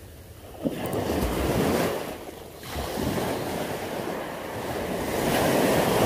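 Surf breaking and washing up a beach in three swelling surges of noise, the last and loudest near the end, with wind on the microphone.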